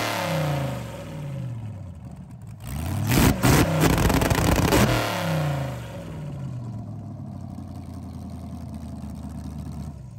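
LS V8 engine with open individual exhaust stacks, free-revved while parked: the revs fall away, then one sharp blip about two and a half seconds in is held high for about two seconds before dropping back to a steady idle.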